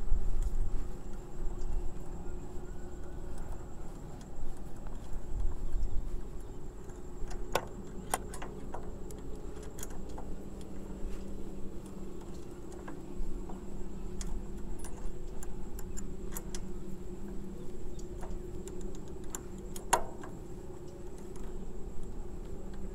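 Allen key clicking and scraping against a bolt head as a helmet lock's mounting bolt is turned in and tightened, in scattered small metallic ticks.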